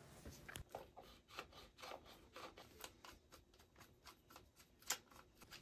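Near silence, with faint clicks and rubbing from hands handling a plastic handlebar switch housing and twist-throttle grip. One slightly louder click comes near the end.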